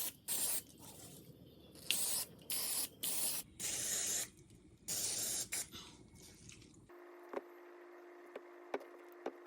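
Aerosol cooking spray squirted in a series of short hissing bursts, about seven in all. A steady low hum with a few faint clicks follows.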